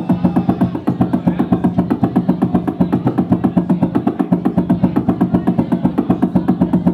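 Hip hop/groove band playing live without vocals: a fast, even run of percussive hits, about eight a second, over a held low note.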